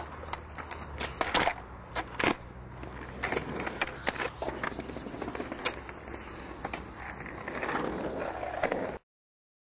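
Freestyle skateboard on concrete: wheels rolling and the board clacking against the ground again and again as tricks are done, with a steady low rumble beneath. The sound cuts off suddenly near the end.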